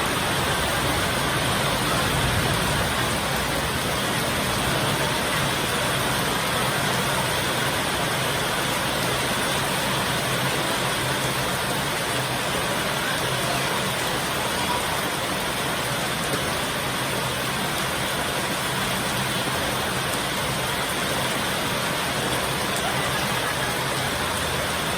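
Heavy rain falling steadily, a dense even hiss that holds at one level throughout, with no thunderclaps.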